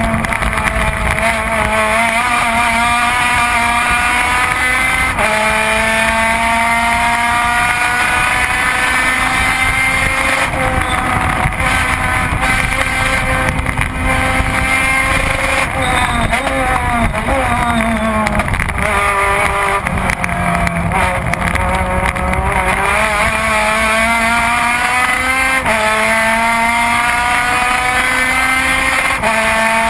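Race car engine recorded onboard at full throttle, its pitch climbing through each gear and dropping sharply at each upshift. About halfway through, the pitch falls in steps as the car brakes and downshifts, then climbs through the gears again.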